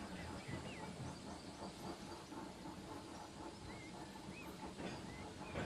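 Birds chirping over a steady hiss and low rumble of a steam railway scene, a few short twittering calls scattered through.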